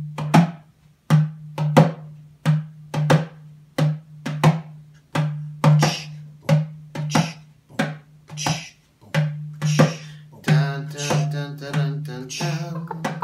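Metal darbuka (goblet drum) played by hand in a steady repeating beat: deep ringing bass strokes alternating with sharp, crisp slaps on the rim.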